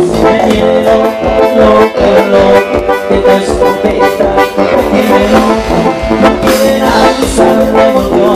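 Live amplified band playing a loud instrumental dance passage with no singing: melody lines over a regular drum beat, heard close from the stage.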